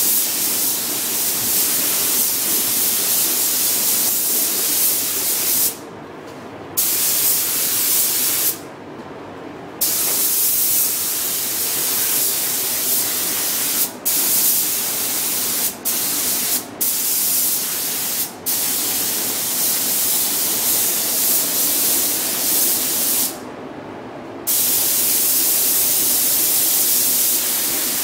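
Compressed-air gravity-feed spray gun hissing as it lays automotive paint onto a car body, with the trigger let go for about a second three times and for brief moments four times in between. A fainter steady background noise stays on through the pauses.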